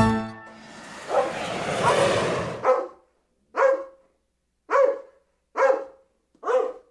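A dog barking five times, about a second apart, after a couple of seconds of noisy commotion.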